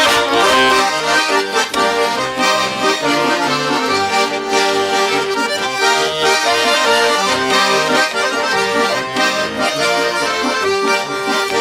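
Accordion playing an instrumental introduction to a folk song: a melody over rhythmic, evenly repeating bass notes and chords.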